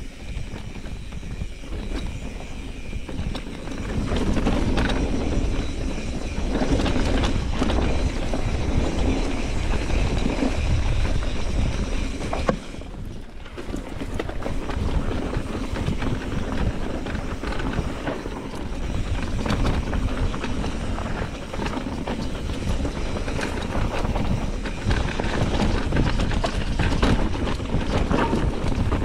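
Electric mountain bike riding over a rocky, rutted trail: wind rumble on the camera microphone with constant rattling and knocking as the tyres and suspension hit stones, easing off briefly about halfway through.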